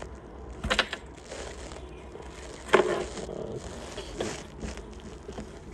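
Adhesive tape being pulled and peeled off to free a spare key taped inside a plastic top case, with rustling and two sharper rasps, about a second in and near the middle.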